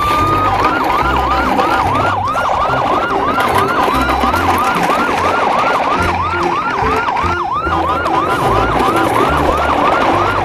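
Electronic siren winding up, then wailing in a fast yelp of about three rising-and-falling sweeps a second, with low pulsing notes underneath.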